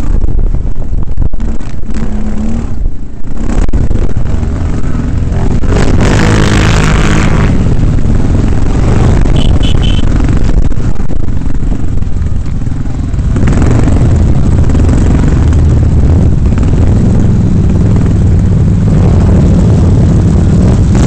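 Quad bike (ATV) engine revving up and down under hard acceleration on a dirt track, recorded from the machine itself. It is loud enough to distort, with wind buffeting on the microphone.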